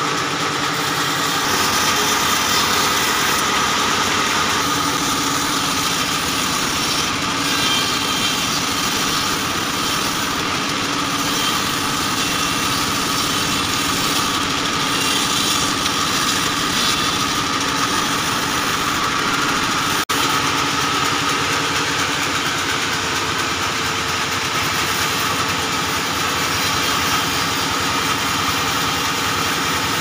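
Band sawmill running steadily while acacia logs are ripped lengthwise into slabs on its table, a constant mechanical drone with a high steady whine.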